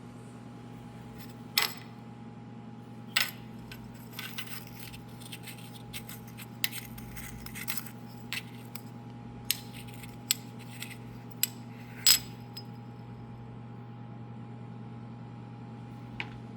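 Scattered light metallic clinks and taps, about a dozen spread irregularly, the loudest about twelve seconds in, over a steady low hum.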